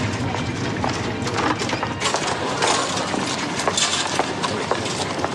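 Busy street ambience of people walking and cycling: a steady clatter of many quick clicks and knocks over a constant wash of noise.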